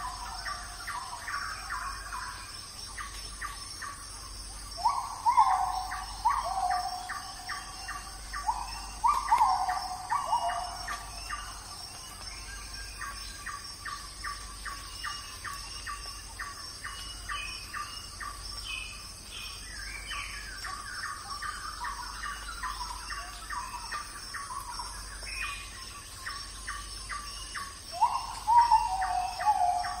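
Birds calling: several loud falling whistles, in pairs about a second apart near the start and again near the end, over a steady run of short chirps about three a second. A steady high-pitched drone runs underneath.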